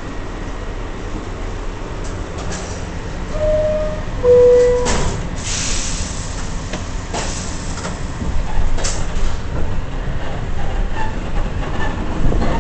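Inside an R62A subway car: the two-note door chime sounds, a higher note and then a lower one, followed by a hiss as the doors close. Then the car's rumble grows louder as the train moves off, with a few sharp knocks.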